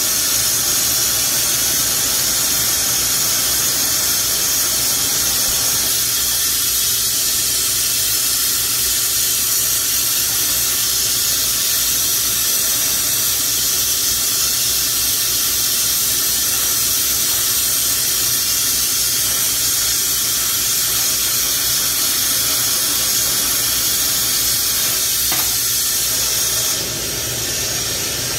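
Glassblowing bench torch burning with a steady hiss while glass rod is heated in its flame. Near the end the hiss dips and changes briefly as the flame is readjusted.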